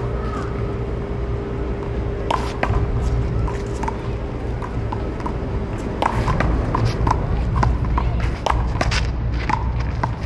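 Paddleball rally: repeated sharp pops of the rubber ball being struck and bouncing, some with a short ringing ping, starting about two seconds in and coming thicker after about six seconds, over a steady low rumble.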